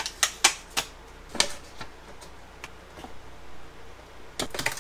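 Hand tools prying and cutting at the plastic case and insulation of a 12V LiFePO4 battery: scattered sharp clicks and short scrapes, with a quick run of them near the end.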